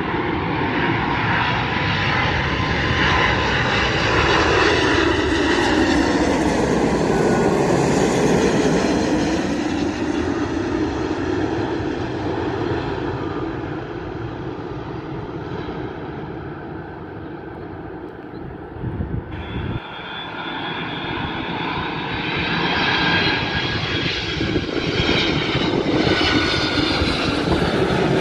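Boeing 777-200 airliner on final approach passing low overhead: its jet engine whine and rumble swell, sweep down in pitch as it goes by, then fade away. About two-thirds of the way through, an abrupt change brings in a second airliner on approach, a DHL Boeing 767-300 freighter, whose jet noise grows louder toward the end.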